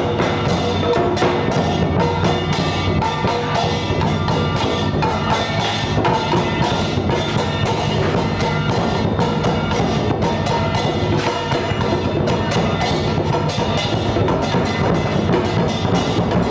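Percussive music: rapid wood-block strikes over ringing bells and drum, steady throughout.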